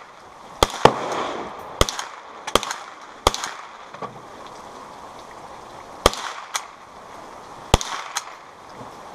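Rifle shots on a shooting range: about nine sharp cracks at irregular intervals, some in quick pairs, each with a short echo.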